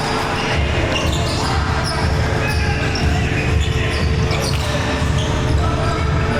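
Volleyballs bouncing and being hit on an indoor court, with many short knocks over a steady din of players' voices echoing in a large hall.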